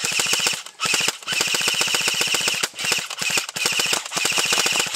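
Airsoft rifle firing on full auto: a fast, even rattle of shots in several long bursts with short breaks between them.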